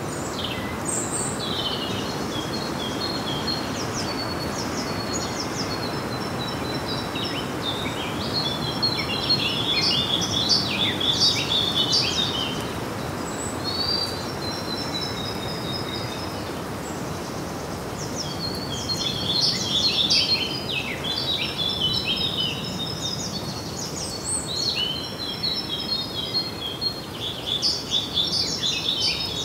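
Small songbirds singing in repeated bouts of rapid high chirps and trills over a steady background hiss.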